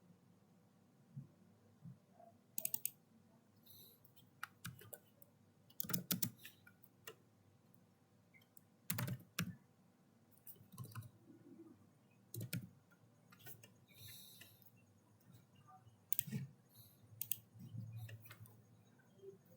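Scattered clicks of a computer mouse and keyboard, some in quick clusters of two or three, over a quiet room.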